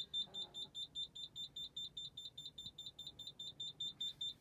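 A car's in-cabin reverse-gear warning beeper sounding a rapid, high-pitched beep, about five beeps a second, while the car is in reverse with the ignition on.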